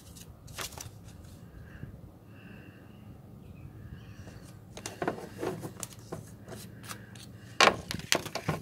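Bubble-wrap packaging and a paper instruction sheet crinkling and rustling as they are handled, with sharper crackles about five seconds in and again near the end.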